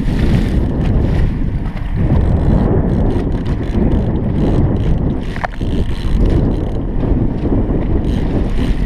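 Steady wind buffeting the camera microphone over the low rumble of the boat's outboard motor while trolling.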